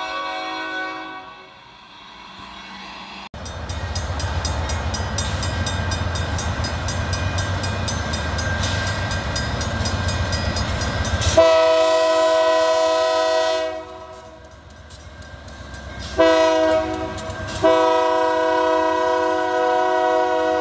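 Union Pacific diesel locomotive approaching with a steady low engine rumble, then its air horn sounds a long blast, a short blast, and another long blast held to the end. A few seconds of music fade out at the start.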